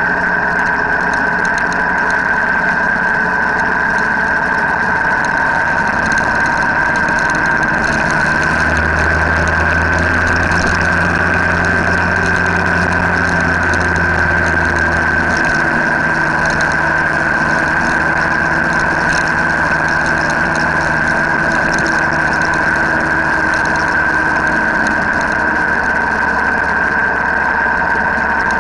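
Motorcycle engine running steadily at cruising speed, with road and wind noise from a camera mounted on the moving bike. A steady high whine runs over it, and a deeper drone swells for several seconds in the middle.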